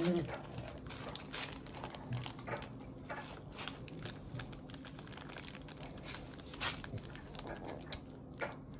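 Crusty cheese pide being torn apart by hand: a run of small, irregular crackles from the crust breaking, with crinkling of the paper it lies on.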